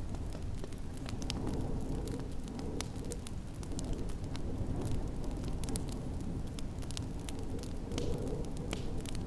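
Wood fire crackling in a fireplace, with many small, irregular pops and snaps over a steady low rush of snowstorm wind.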